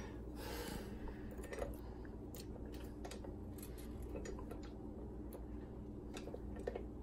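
Faint scattered clicks and taps of a flat beater being handled and fitted onto the head of a KitchenAid stand mixer, over a low steady hum.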